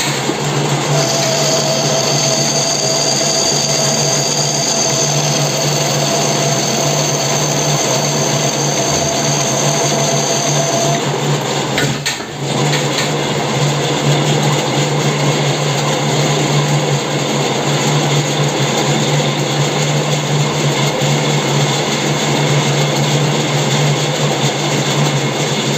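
Metal lathe running, its chuck spinning while a boring bar cuts inside the bore of a steel nut to recut a damaged thread. It gives a steady low hum under the cutting noise, with a thin high whine over the first ten seconds and a brief dip about twelve seconds in before it runs on.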